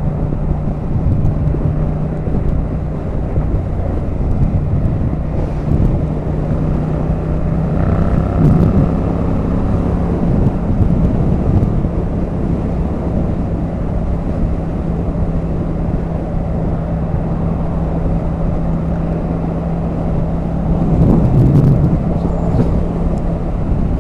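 Motorcycle engine running at a steady road speed, its note shifting briefly about eight seconds in, under heavy wind rushing and buffeting over the microphone.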